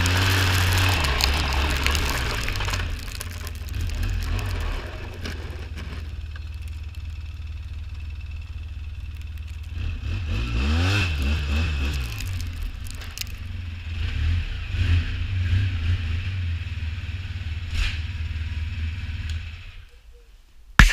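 Small petrol engine running steadily under load, with snow being thrown. The pitch swells up and back down about halfway through, and the engine dies away near the end, followed by one sharp click.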